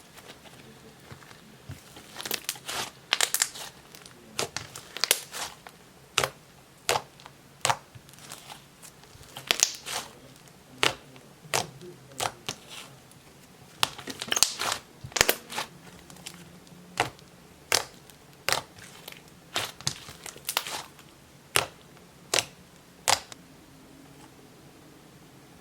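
Soft clay slime being squeezed and stretched by hand, giving irregular sharp clicks and pops, one or two a second, that stop a couple of seconds before the end.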